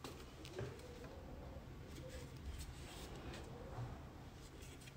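Faint handling noise of a Shure SLX wireless receiver being lifted and turned over by hand: a few soft clicks and knocks, with a faint wavering hum underneath.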